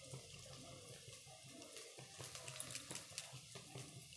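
Faint, steady sizzle of chopped onion, garlic paste and green chilies frying in oil in a kadai, with scattered small crackles.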